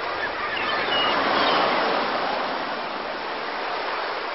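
Ocean surf: a steady rushing wash of waves that swells about a second in and then slowly eases, with a few faint short high-pitched cries over it.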